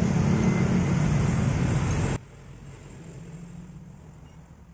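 A motor-vehicle engine runs with a steady low hum for about two seconds, then cuts off abruptly, leaving a faint low hum.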